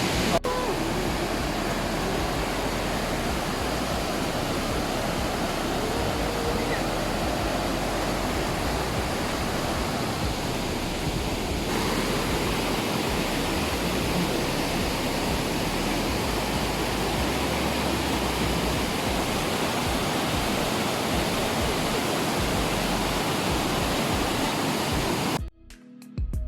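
Steady rushing of a river in full spate after heavy rain, cutting off suddenly near the end.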